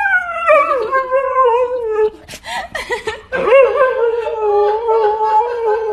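A dog vocalizing in two long, wavering, whine-like howls that start high and fall in pitch, with a short breathy sound between them.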